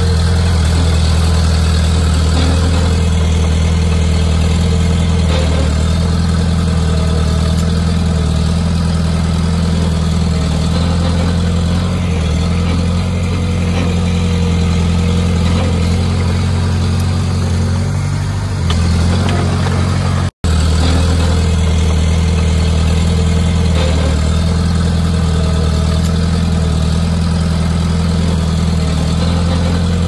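Diesel engine of a Komatsu D20P bulldozer running steadily with a low, even drone, the sound breaking off for an instant about two-thirds of the way through.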